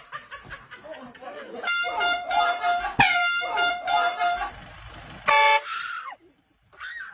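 Handheld air horn blaring in a run of short honks, with a sharp bang about three seconds in, then one short, very loud blast about five seconds in.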